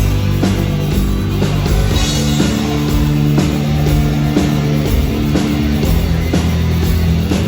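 Rock band playing an instrumental passage: guitars holding chords over a steady drum beat, about two strokes a second.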